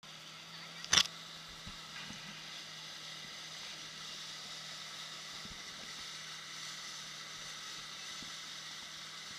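Jet ski running steadily under way, with a steady engine hum under the hiss of spray off the hull. A single sharp knock about a second in.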